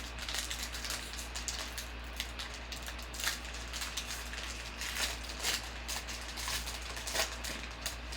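Trading card pack wrappers crinkling and rustling as packs are opened and cards handled, in irregular crackles of varying loudness.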